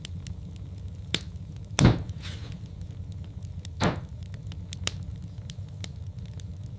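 Log fire in a fireplace crackling over a low steady rumble, with two louder pops about two and four seconds in.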